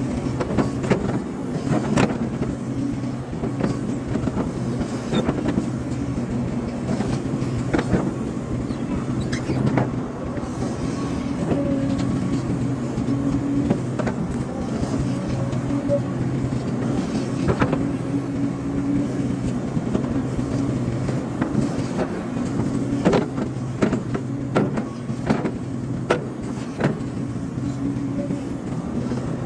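Hydraulic excavator's diesel engine running steadily under work, with many short knocks and clanks from the machine as it digs and dumps earth.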